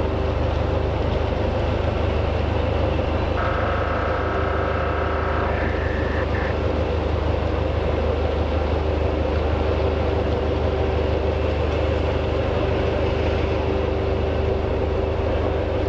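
Hy-Line high-speed ferry's engines idling at the dock: a steady low rumble with a constant hum over it. About three seconds in, a higher whine joins for roughly two seconds.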